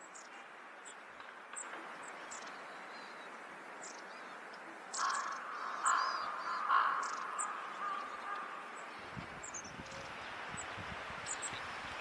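Long-tailed tits of Hokkaido's white-headed race (shima-enaga) giving many thin, very high, short calls, scattered throughout. About five to seven seconds in, three louder, lower sounds stand out, and wind rumbles on the microphone in the last few seconds.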